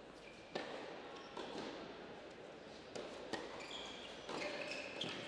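Tennis balls bouncing on an indoor hard court, a few separate sharp knocks that echo in the hall, with a few brief high squeaks near the end.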